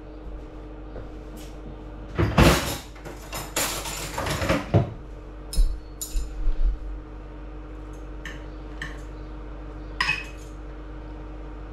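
A metal fork scraping and clinking on a plate as food is picked up, busiest in the first half, then a few light clinks. A steady low hum runs underneath.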